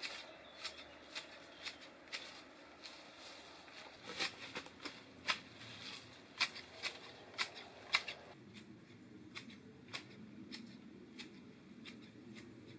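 Hand garden shears snipping through brambles and undergrowth: a string of sharp snips, about two a second, over faint rustling.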